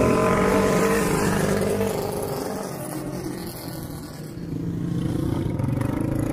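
Small motorcycles driving past on a street. One engine's note drops and fades over the first two seconds, and another motorcycle engine grows louder from about halfway through.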